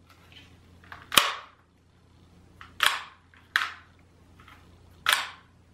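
Daisy PowerLine 880 air rifle's underlever pump arm being worked: about four sharp clacks, each with a short rush of air, as the lever is swung open and shut.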